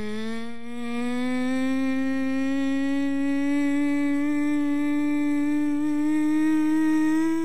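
A person's voice humming one long held note that slowly rises in pitch.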